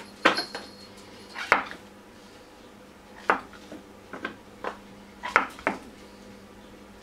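Kitchen knife cutting mushrooms on a chopping board: a series of sharp, irregular knocks as the blade hits the board.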